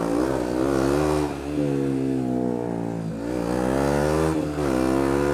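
KTM 125 Duke's single-cylinder four-stroke engine accelerating through the gears. Its pitch rises, then drops back at each of three gear changes: about a second in, about three seconds in and near the end.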